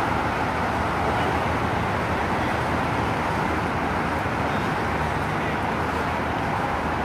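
Steady traffic noise, a continuous even rush of road vehicles, with a low hum underneath.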